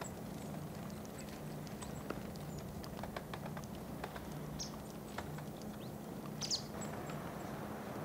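Grey-headed woodpecker pecking at a block of suet on a tree trunk: irregular light bill taps, several a second, some closer together than others.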